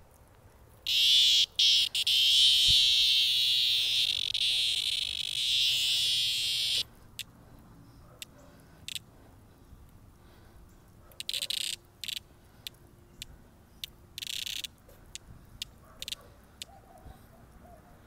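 A male cicada held in the hand giving its distress buzz: one loud, high, raspy buzz lasting about six seconds, then a scatter of short buzzes, a couple of them about half a second long.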